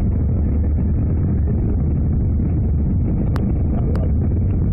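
Steady low rumble of an Airbus A319's cabin noise during descent, heavily muffled because the microphone is covered. Two small clicks sound near the end.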